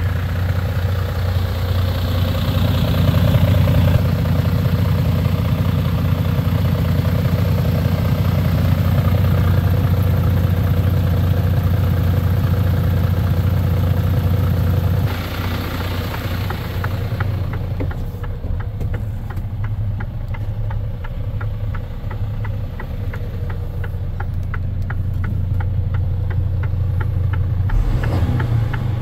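Mercedes-Benz Arocs 1840 truck's straight-six diesel engine idling steadily. About halfway through it turns quieter and more muffled, heard from inside the cab.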